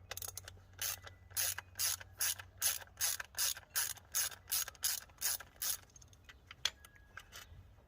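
Hand ratchet wrench clicking in a steady run, about three clicks a second, while backing out the 8mm bolts that hold a throttle body to the intake, then a few scattered clicks near the end.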